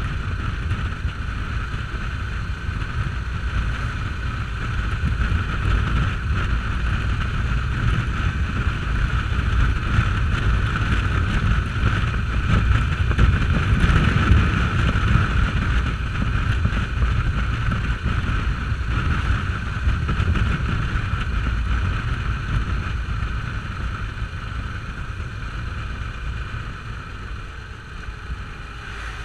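Motorcycle riding at highway speed: wind rushing and buffeting over the camera microphone with the engine running underneath. Louder around the middle, easing off near the end.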